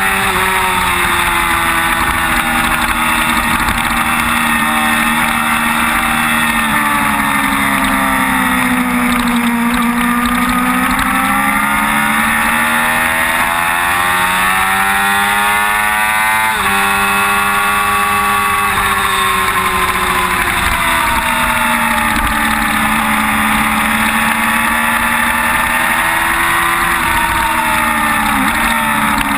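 Sport motorcycle engine running hard on track, its pitch falling as it slows for corners and climbing again under acceleration, with a sudden drop in pitch about halfway through at a gear change. Heavy wind noise on the microphone.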